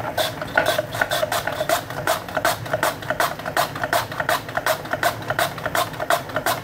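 A potato being sliced thin on a handheld mandoline, each pass across the blade a short sharp cut, in a quick regular rhythm of about four or five strokes a second.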